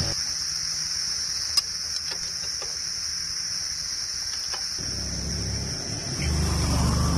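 Steady high-pitched insect chirring. There is one sharp click about a second and a half in, and a low rumble in the last two seconds.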